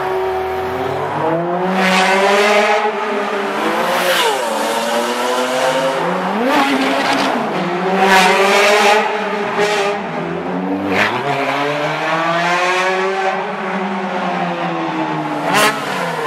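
Ferrari 430 Scuderia V8 engine run hard, its pitch climbing and falling in repeated long sweeps broken by several sharp, sudden changes.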